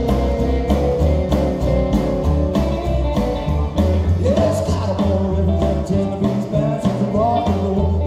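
Live rockabilly band playing: upright bass, electric guitars and drums, with a male voice singing.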